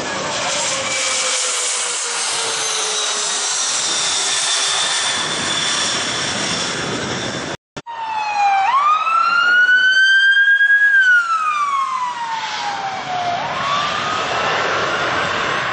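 Fire department ambulance sirens wailing over traffic. First a siren tone falls slowly as the ambulance pulls away. After a brief cut, a second ambulance's siren wails: it rises, holds, falls over a couple of seconds, then rises again, loudest near the middle.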